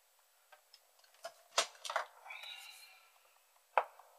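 Small objects handled and set down on a workbench: a few light knocks and clicks, with a short ringing clink about two seconds in.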